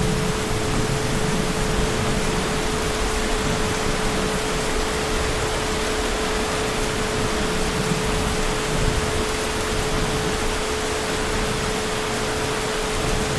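Heavy rain falling with a steady, even hiss, a single steady pitched tone running underneath it, and a low rumble that swells and fades.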